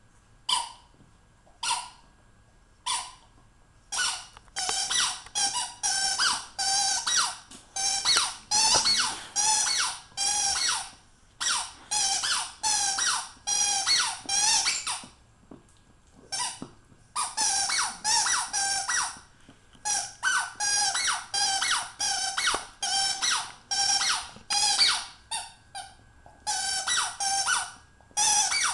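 Squeaky dog toy squeaked over and over as a dog bites and chews it. It gives a few single squeaks at first, then quick runs of several high squeaks a second with short breaks between them.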